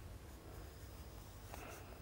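Faint scratching of a colored pencil drawing on sketchbook paper, over a low steady room hum.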